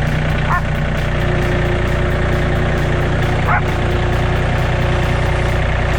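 Farm tractor engine running steadily at a low, even speed. Two short high chirps sound over it, about half a second in and again about three and a half seconds in.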